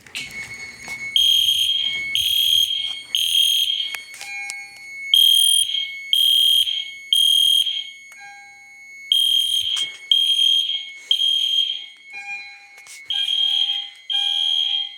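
EST Genesis fire alarm horns sounding the temporal-three evacuation pattern: three high-pitched blasts, a pause, then three more, repeating. The alarm has been set off by a pulled FCI MS6 manual pull station.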